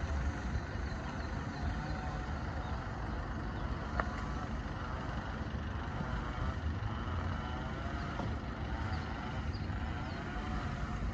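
Steady low outdoor rumble, with a single sharp click about four seconds in.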